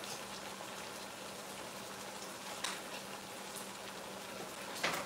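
Chicken pieces frying in a skillet: a steady soft sizzle. Two brief crackles, about two and a half and five seconds in, as a stiff plastic seal on a spice container is picked at.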